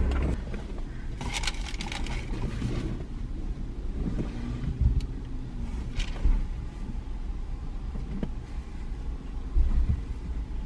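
Steady low rumble of a car, with a few scattered clicks and rustles.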